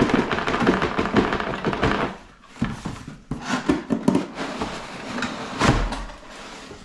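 Cardboard boxes scraping and rustling against each other as an inner box is slid out of a snug outer box, with scattered knocks, then one low thump near the end as cardboard bumps the counter.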